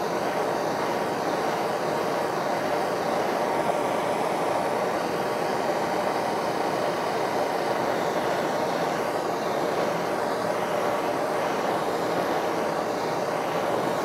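Handheld gas torch burning with a steady, unbroken rushing flame noise while it heats a steel drive pulley for a shrink fit.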